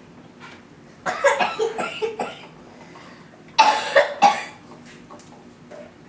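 A person coughing: a run of short coughs about a second in, then a second, louder bout of coughs about halfway through.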